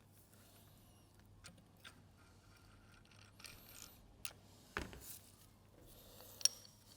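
Light clicks and faint scrapes of small metal oil-pump parts being handled and fitted together, with one louder knock about five seconds in and a sharp click near the end. A steady low hum runs underneath.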